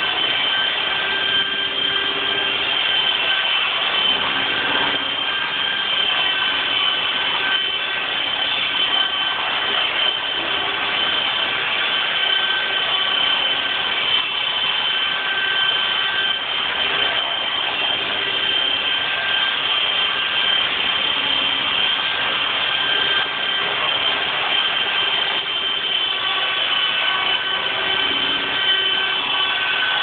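Titan 450 RC helicopter hovering: a steady high-pitched whine from the motor and drive with rotor noise, its pitch wavering slightly as the throttle is held.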